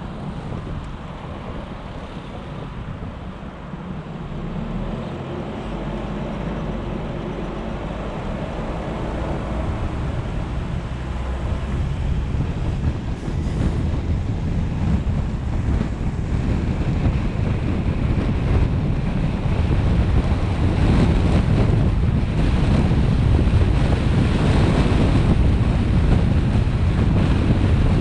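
Road and wind noise from a moving car, with wind buffeting the microphone, growing steadily louder.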